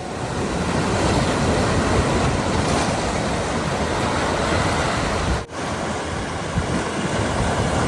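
Loud ocean surf breaking on a rocky shoreline, a steady wash of waves with a brief dropout about five and a half seconds in.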